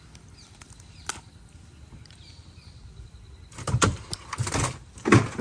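A hooked fish thrashing as it is pulled out of the water: after a fairly quiet start, a run of loud splashing and flapping bursts about three and a half seconds in, lasting under two seconds.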